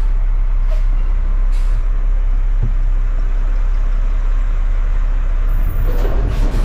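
Front-loader garbage truck's diesel engine running steadily with a deep rumble, with a few brief hisses.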